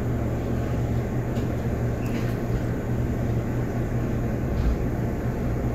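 Inside a Taiwan Railways local commuter train pulling slowly away from a station: a steady low hum over an even noise of running.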